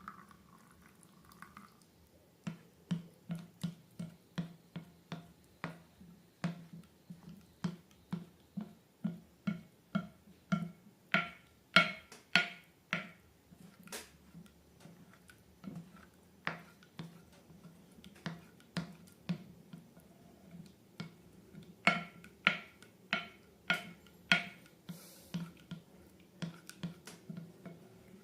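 Slime being worked by hand, giving a run of short, sharp wet clicks and pops at about two a second, with a few louder clusters.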